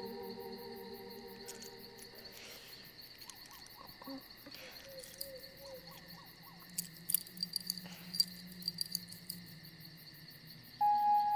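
Faint night-time insect chirping, with soft scattered clicks and scratches of hands sifting dry dirt about halfway through. A held music chord fades away at the start, and a new sustained music tone comes in near the end.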